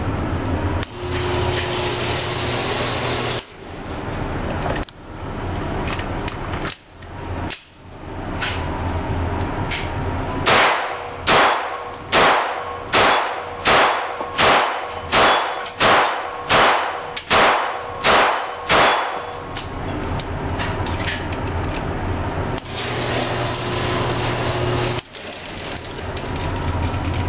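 Handgun fired in a steady string of about a dozen shots, a little under a second apart, each ringing briefly, over a steady background hum.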